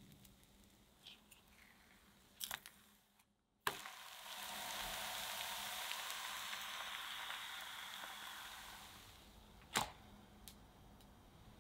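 Crepe batter sizzling in a frying pan as bubbles rise through it: the steady sizzle comes in sharply about four seconds in and fades away after about five seconds. A single sharp tap follows near the end.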